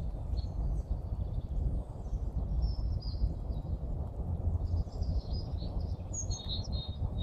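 Small songbirds chirping and singing in spring, with short high notes scattered through and busiest in the second half, over a steady low rumble.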